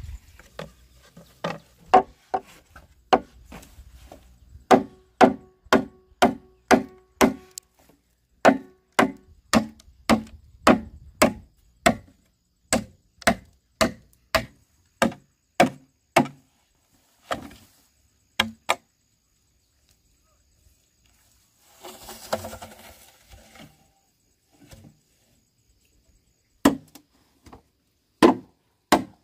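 A blade chopping into a hollow bamboo pole, about two strikes a second, some with a short hollow ring. The chopping stops for a few seconds, a rustling scrape follows, and then a few more chops come near the end.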